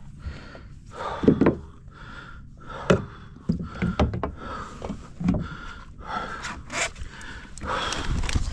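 A man breathing hard in quick, repeated breaths, with a few sharp knocks mixed in.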